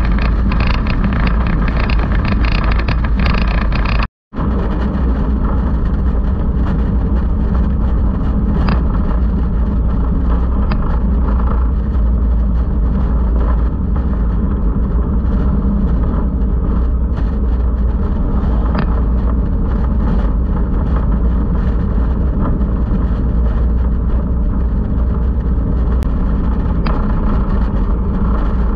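2017 Indian Chief Vintage's Thunder Stroke 111 V-twin running steadily at cruising speed, mixed with heavy wind and road rush on the microphone. The sound cuts out for a moment about four seconds in.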